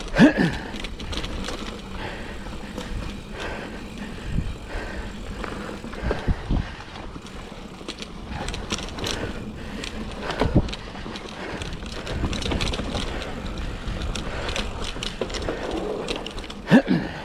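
2007 Cannondale Rush mountain bike ridden along a dirt trail: steady tyre and wind noise, broken by about four sharp knocks as it goes over bumps.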